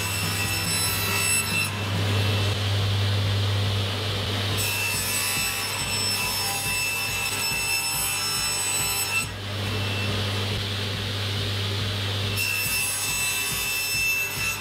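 Table saw running with a steady motor hum while its blade rips MDF, cutting in three stretches with a high whine over the hum. The middle cut ends about nine seconds in.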